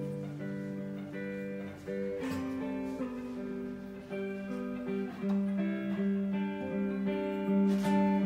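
Acoustic guitar and electric guitar playing together, an instrumental passage of held and changing chords and single notes.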